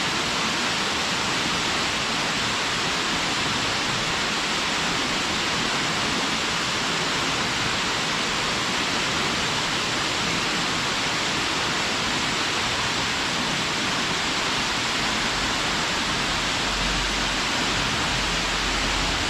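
Waterfall, water falling and splashing in a steady, even rush. A low rumble joins in near the end.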